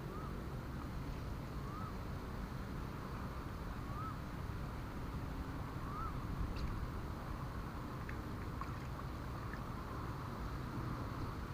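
A motor running steadily with a low hum, and a short rising-and-falling chirp that repeats about every two seconds.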